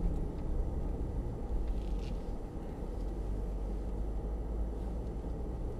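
Steady low rumble of a Mercedes-Benz GL-Class SUV driving slowly along a dirt off-road track, heard from inside the cabin: engine and tyre noise.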